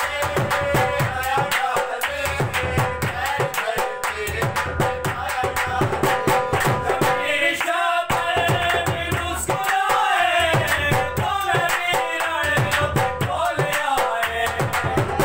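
A large dhol beaten in a fast, steady rhythm, with several men clapping along and men singing a Punjabi devotional dhamaal over it.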